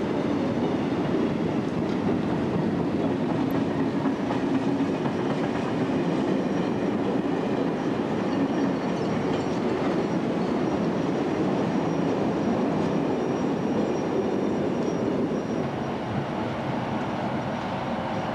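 Freight wagons rolling past close by: a steady rumble of steel wheels on the rails, easing off a little near the end.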